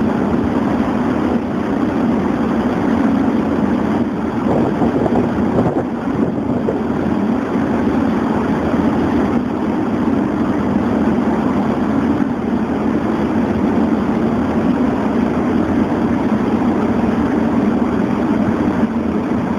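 Steady drone of boat engines over rushing water and wind at sea, unchanging throughout.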